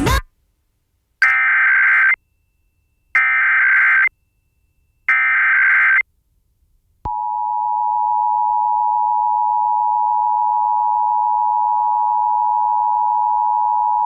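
Emergency Alert System tones on an FM broadcast: three short bursts of SAME header data, each a raspy digital screech under a second long and about two seconds apart, encoding a Required Monthly Test. After about a second of silence, the steady two-tone attention signal starts about seven seconds in and holds.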